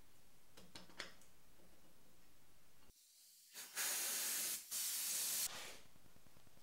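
A few light clicks as a bearing is pushed into the tapping head's housing by hand, then two hisses of spray from a pressurised nozzle, each about a second long with a brief break between; the hisses are the loudest sound.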